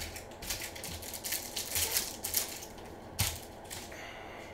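Foil trading-card pack wrapper crinkling and crackling as it is torn open and the cards are pulled out, with one sharp tap about three seconds in.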